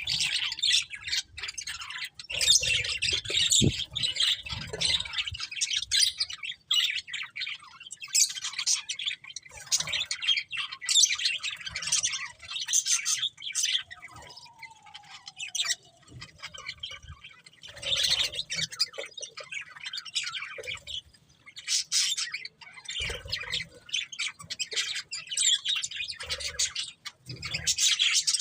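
Budgerigars chattering and chirping: rapid high chirps and warbles in bouts with short lulls between them, and a few soft low thumps in places.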